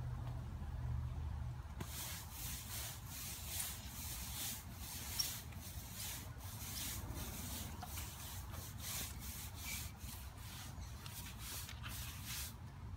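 Push broom scrubbing water-based stain into stamped concrete, its bristles rasping over the surface in quick back-and-forth strokes, about two or three a second. The scrubbing starts about two seconds in.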